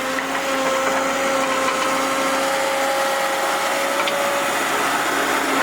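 Excavator engine running at a steady speed, a constant motor hum with a steady whine in it.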